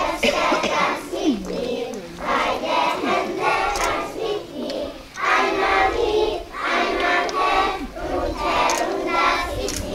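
A group of children singing together in chorus, in short phrases with brief breaks between them.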